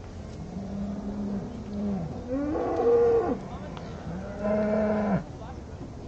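Cows mooing, several drawn-out calls one after another with some overlapping; the loudest is a higher, rising moo about halfway through, and another loud one near the end cuts off suddenly.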